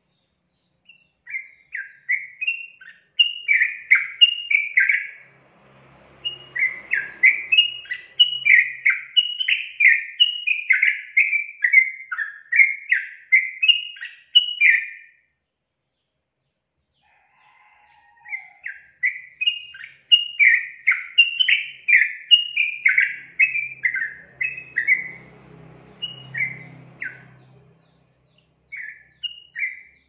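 Yellow-vented bulbul (trucukan) singing: long runs of rapid, bubbly chattering notes, broken by a pause of about three seconds midway, with a few more notes near the end.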